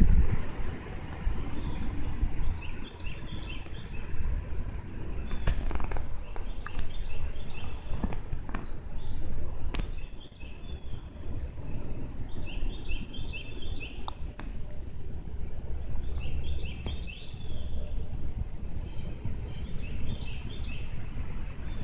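Wind rumbling on the microphone, with a small bird singing short bursts of high chirpy notes every few seconds. A few sharp clicks come near the middle.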